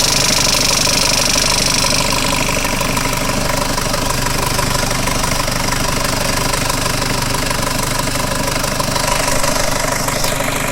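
UAZ Hunter diesel engine running with a knock from its Bosch VE distributor injection pump. The knock comes from the pump being starved of fuel: it goes away when the hand priming pump helps the feed, and was cured by replacing the fine fuel filter.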